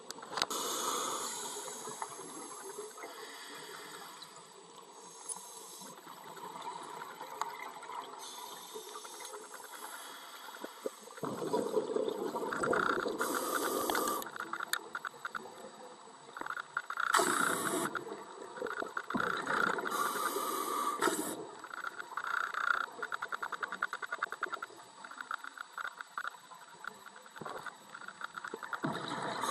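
Scuba diver breathing through a regulator underwater: a hiss of each inhalation alternating with a gush of exhaled bubbles, repeating every few seconds.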